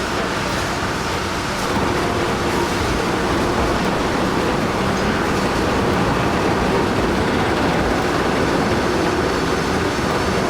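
Heavy vehicle running with a steady, dense rumble, growing slightly louder about two seconds in.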